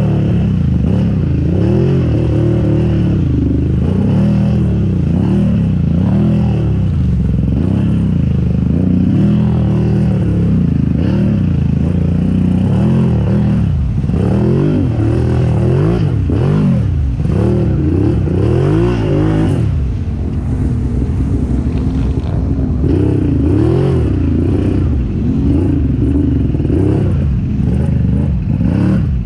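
Big-bore Can-Am Renegade ATV's V-twin engine revving up and down over and over as the quad churns through mud and water, through an aftermarket HMF exhaust. Mud and water splash against the machine.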